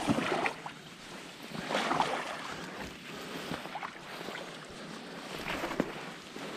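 Water sloshing and splashing around a wader-clad angler's legs as he wades, in a few irregular surges a second or two apart.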